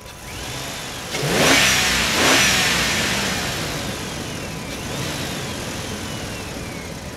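Small electric motor of an RC dump truck whining as it tips its loaded bed, the whine sliding slowly down in pitch. A loud rushing swell with a sweeping pitch about a second in.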